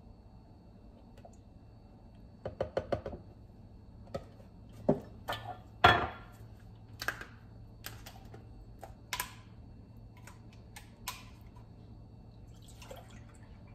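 Cartons and a plastic gallon milk jug being handled on a kitchen countertop: scattered clicks and knocks, a quick rattle of clicks about two and a half seconds in, and the loudest knock about six seconds in.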